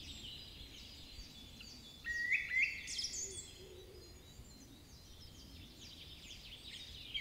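Small birds chirping: a string of short, high chirps repeating throughout, with a louder, lower call about two seconds in.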